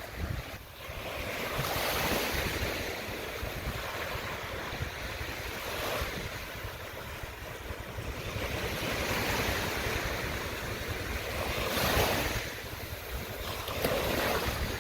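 Ocean surf washing onto a beach in slow swells that rise and fade every few seconds, with wind rumbling on the microphone.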